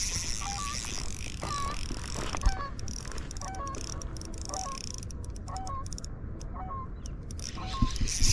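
Geese honking again and again in short calls over a steady hiss, with two sharp knocks, one about two and a half seconds in and one near the end.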